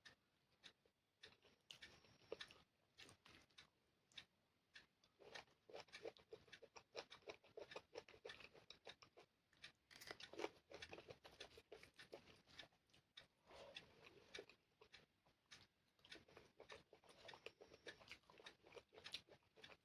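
Close-up eating sounds from chicken curry with rice: chewing, with many short wet mouth clicks coming in quiet, irregular bursts.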